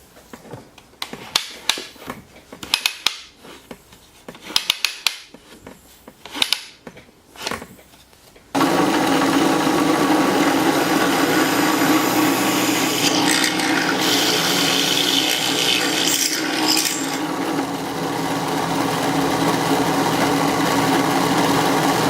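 A run of sharp knocks and clicks from wooden parts being handled, then a power tool starts abruptly about eight seconds in and runs steadily on wood to the end, easing slightly for a moment a few seconds before the end.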